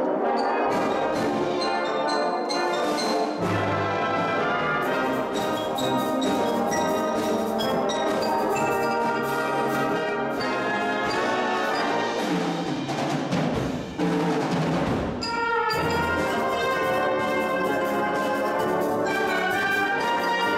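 Brass band playing: cornets, horns, euphoniums and tubas in full harmony with drum strokes, with a brief dip in loudness about fourteen seconds in.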